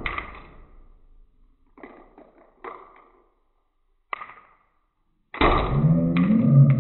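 Slowed-down audio of a paintball gun shooting a marble into a man's leg: a loud hit fading away at the start, a few faint knocks, then from about five seconds in a deep, drawn-out, slowed-down cry.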